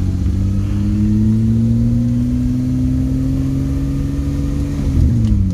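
Car engine pulling under acceleration: its pitch rises over the first couple of seconds, holds steady, then drops near the end as it eases off.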